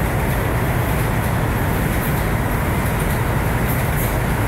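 New York City subway train running on the rails, a steady loud rumble with brief faint high squeaks near the end.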